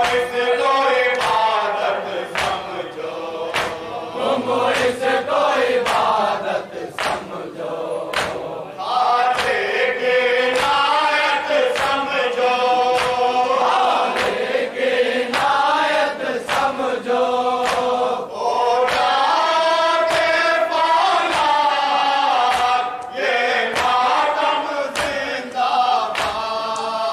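Men's voices chanting a noha (Shia lament) in chorus over a microphone, a lead reciter joined by the group. Throughout there are sharp strikes roughly once a second, the rhythmic chest-beating (matam) that keeps the noha's beat.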